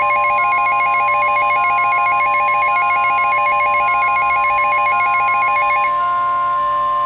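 NOAA Weather Radio 1050 Hz warning alarm tone held steady, the attention signal that comes before a new warning is read out. Over it, a fast-trilling electronic alarm tone like a phone ringing sounds until it cuts off about six seconds in.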